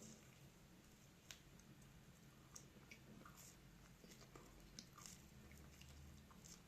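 Faint eating sounds: irregular soft clicks and crunches of food being chewed and bitten.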